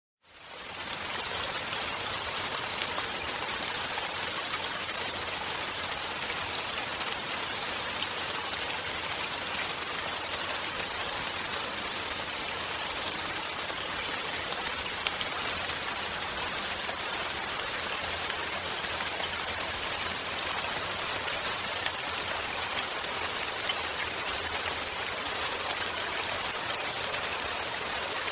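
Steady rain falling on grass and concrete, a dense even patter of drops with fine splashes throughout. It fades in over the first moment.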